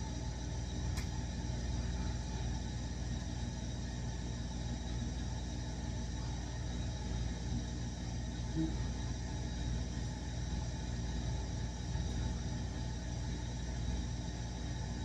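A steady, even mechanical hum with a single sharp click about a second in.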